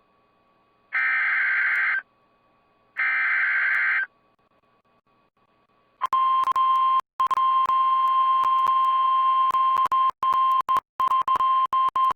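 Emergency Alert System SAME header: two one-second bursts of buzzing digital data tones, about a second apart. A few seconds later comes the NOAA Weather Radio 1050 Hz warning alarm tone, a steady single-pitch tone that signals a warning is about to be read. The tone drops out briefly several times and crackles.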